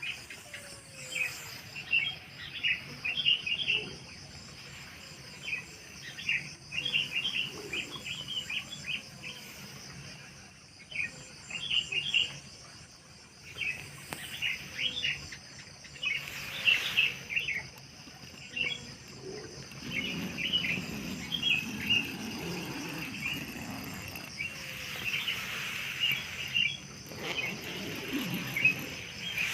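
Small birds chirping in quick clusters over a steady, high-pitched trill of insects.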